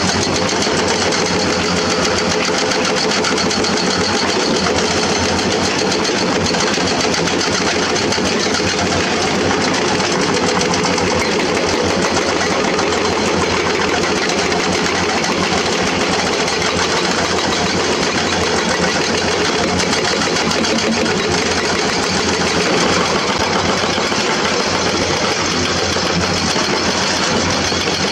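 Diesel excavator engines running, with the fast, steady clatter of a hydraulic rock breaker on a Komatsu PC200 hammering limestone.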